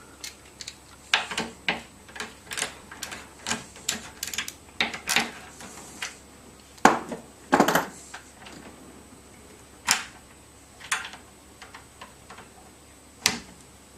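Irregular clicks and knocks from hands working the clamp of a cable-flexing test rig as it is loosened and the HDMI cable handled. The clicks come thick and fast for the first half, then a few single knocks follow.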